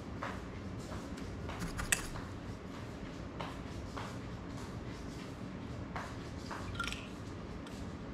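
Faint, scattered small clicks and taps of soldering work on a small FPV drone, with one sharper click about two seconds in, over a steady low hum.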